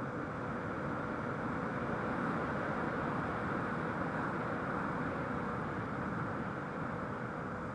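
Model Me262 aircraft in flight, heard from its onboard FPV camera: a steady rush of airflow and motor noise with a faint steady hum, swelling a little midway.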